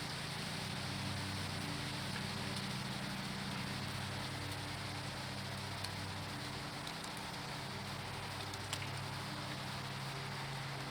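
Steady rain hiss with a few sharp drip ticks scattered through it, over a steady low hum.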